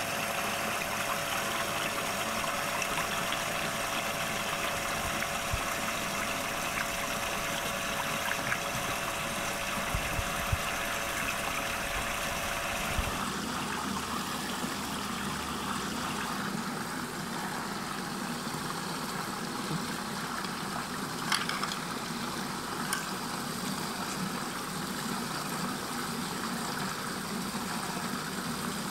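Steady rushing and swirling of water spinning down a whirlpool vortex in a tank, with a faint steady hum underneath for the first half. About halfway through the sound changes as the scene cuts, and the water noise carries on.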